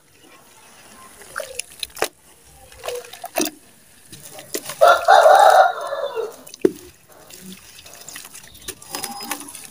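Hands splashing and sloshing in a basin of muddy water and crumbling a dry mud block into it, with scattered splashes and drips. About five seconds in, a loud drawn-out call lasting about a second rises over the splashing.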